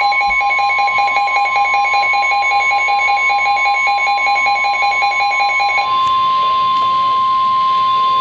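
NOAA Weather Radio 1050 Hz warning alarm tone, a single steady tone marking a warning broadcast, sounding over the receivers' own alert alarms. The receivers beep rapidly in two pitches and stop about six seconds in, leaving the steady tone alone.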